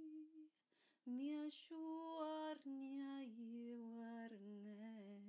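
A woman singing wordless light-language tones in a slow, chant-like way. A long held note with a slight waver ends about half a second in; after a short pause she sings a run of sustained notes that step down in pitch and settle on a low held note.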